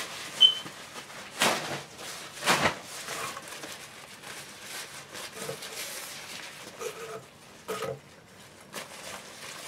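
Rip-stop nylon reusable shopping bag rustling and swishing as it is pulled open and handled, with two louder swishes about one and a half and two and a half seconds in.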